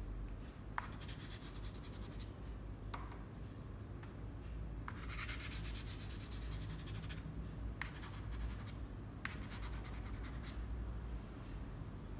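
Soft pastel stick scratching on paper in quick runs of short strokes, with a sharp tap every second or two.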